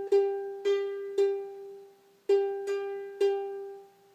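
A string on a 3D-printed ukulele is plucked six times, the same note ringing out and fading each time, with a short pause near the middle. The string is being tightened with its tuning peg to bring it up from slightly flat to pitch.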